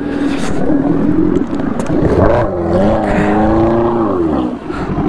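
Superbike engine running in first gear, revved up about two seconds in and held before dropping back near the end, as the bike tries to pull out of deep mud and water where it is stuck.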